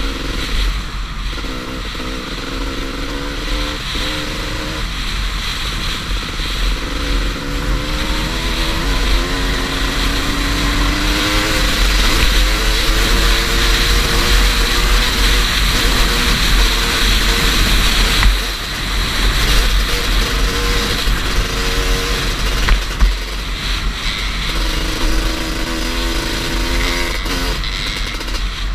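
Two-stroke dirt bike engine at high revs under hard acceleration, its pitch climbing and dropping again and again as it shifts up through the gears, with heavy wind rush on the helmet camera's microphone. The engine drops briefly about eighteen seconds in, then pulls again.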